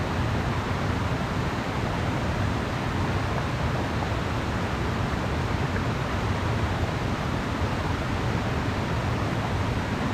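Steady rushing background noise, strongest in the low end, with no distinct events.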